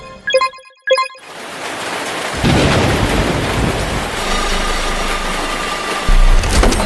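A thunder-like rumble: a rushing, hissing noise that builds up and grows loud about two and a half seconds in over a deep rumble, with a heavier low boom near the end.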